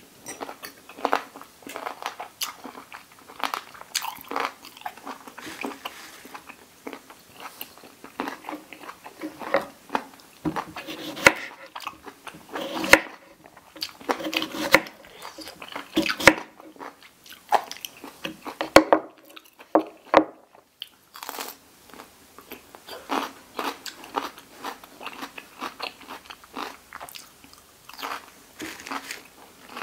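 Close-up eating sounds: irregular crunching and chewing of pig ear cartilage and raw vegetables, with a few sharper crunches around the middle.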